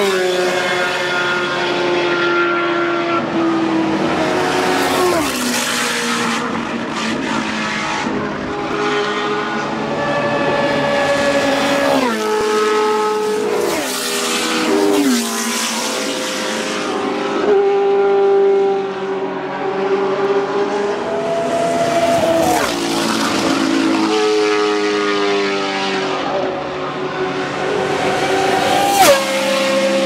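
Historic Formula One cars racing past one after another, their high-revving engines running at full throttle. Each engine note drops sharply in pitch as the car goes by, several times over.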